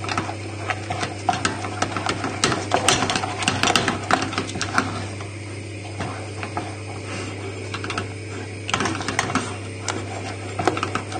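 A utensil being stirred briskly through a thick white sauce in a saucepan, knocking and scraping against the pan's sides and bottom in a quick, uneven run of clicks. The sauce is still a stiff roux-and-milk paste that needs constant stirring as milk is added.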